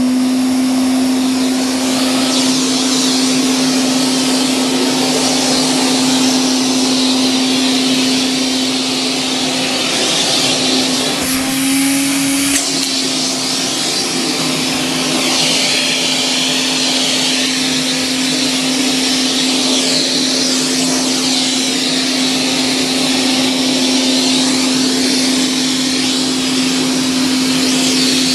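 Mid-1960s Hoover Constellation 867A vacuum cleaner running: a steady motor hum over rushing air. About eleven seconds in, the motor's pitch rises slightly for a second or so, then settles back.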